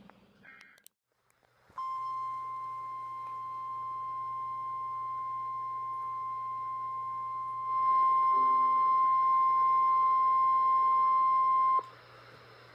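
NOAA Weather Radio warning alarm tone: a single steady 1050 Hz beep held for about ten seconds, signalling that a warning message is about to be read. It gets louder partway through and cuts off sharply near the end, over a low steady hum.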